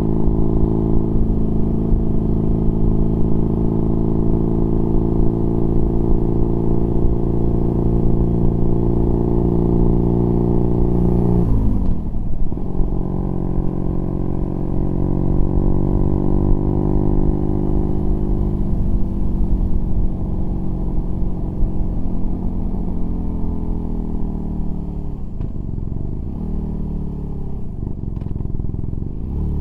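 BMW R nineT Pure's boxer twin running through an aftermarket Competition Werkes exhaust with a dB killer fitted, heard from the rider's position at steady cruising speed. About twelve seconds in its pitch drops sharply, then holds. From about two-thirds of the way through, the note falls away as the bike slows, with several quick dips and rises near the end.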